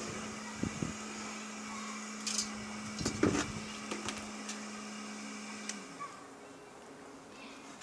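Steady hum of a homemade wood gasifier's small electric blower, which winds down and stops about six seconds in. A few light knocks and clicks are heard around the middle.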